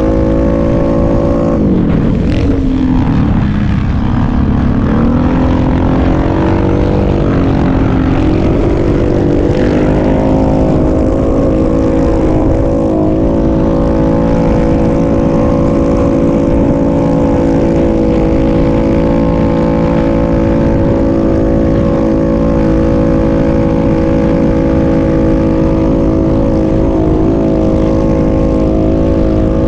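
Kawasaki KFX700 ATV's V-twin engine running hard under the rider: its pitch drops sharply about two seconds in, climbs back over the next few seconds, then holds steady at a constant speed.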